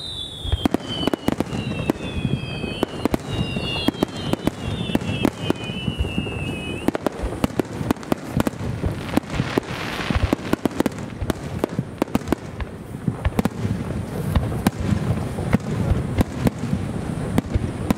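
Large star mine fireworks barrage: shells launching and bursting in a rapid, irregular series of booms, several a second. A few overlapping whistles falling in pitch sound over the bangs during the first seven seconds.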